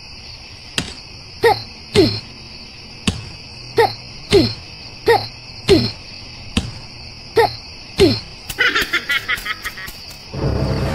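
Repeated digging strikes of a miniature hoe in soil, roughly one every half second to second, each a click followed by a short falling-pitched sound, over a steady high chirring of crickets. Near the end there is a fast run of clicks, and then a louder sound starts.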